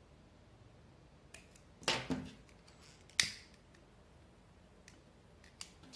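Small handling clicks and taps of thread and tools, with a louder short snap about two seconds in and a sharp click a little after three seconds in: a disposable lighter being struck to flame for singeing the knotted thread end.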